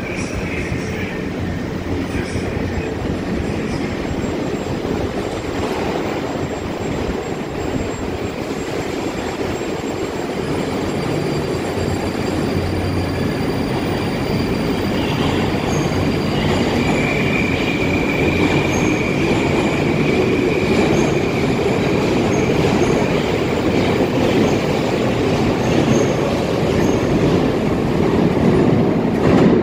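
Moscow Metro train pulling out of an underground station, its motors and wheels rumbling along the rails and echoing in the hall, with a steady high whine for several seconds midway and the noise building toward the end.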